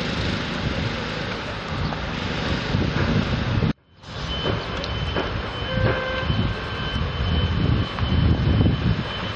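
Outdoor street ambience with vehicle and traffic noise, steady and rumbling at the low end. It cuts out sharply for a fraction of a second about four seconds in, then carries on, with a few faint steady tones in the second half.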